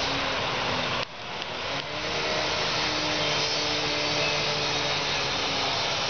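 Dam outflow water rushing steadily down a rocky spillway channel. The noise dips sharply about a second in and comes back within a second.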